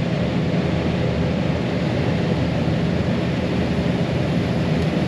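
Gleaner combine harvester running steadily: an even engine and machinery drone with a constant low hum and no change in speed.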